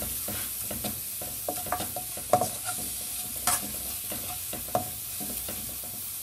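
Chopped garlic sizzling as it is lightly sautéed in a little oil in a non-stick pan. A ladle stirs it, scraping and knocking against the pan at irregular intervals, with the sharpest knocks about two and a half and three and a half seconds in.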